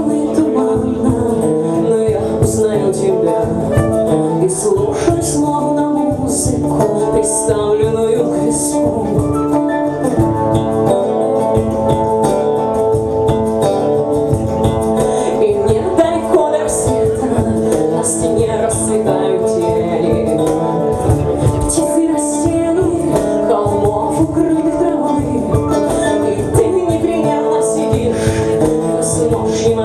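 Live rock band playing: keyboard, electric guitars and bass over a drum kit, with cymbal hits keeping a steady beat.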